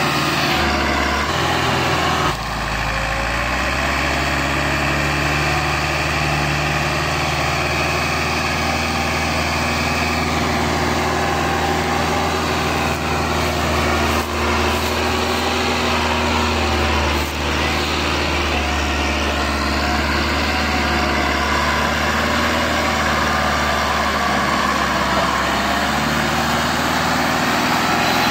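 Massey Ferguson 385 tractor's four-cylinder diesel engine running hard under heavy load as it pulls a loaded sugarcane trolley. Its note is steady, with a short dip about two seconds in.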